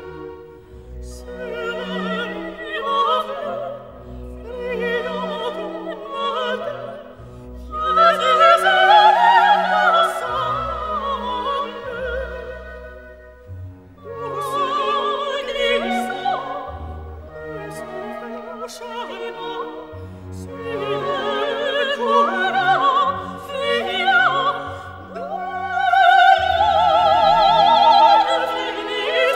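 Operatic singing with vibrato over an orchestral accompaniment: a classical music soundtrack.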